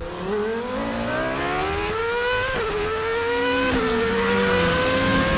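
Car engine accelerating hard through the gears: its pitch climbs, drops sharply at an upshift about two and a half seconds in, climbs again, and drops at a second shift a little over a second later before rising once more.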